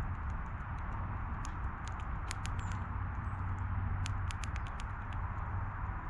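Animals feeding at a backyard feeder: quick, sharp clicks and taps of seeds being pecked and cracked, in two flurries about two and four seconds in. A steady low hum and a background hiss run underneath.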